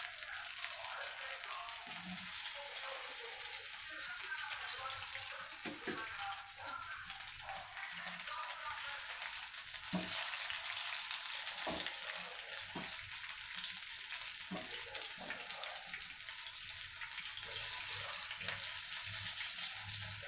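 Mushroom pakodas deep-frying in hot oil in a kadai: a steady sizzle and crackle, with a few short knocks of a metal slotted spoon against the pan as they are turned.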